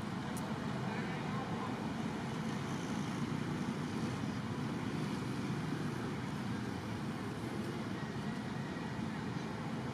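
Steady low background rumble with no distinct sounds standing out.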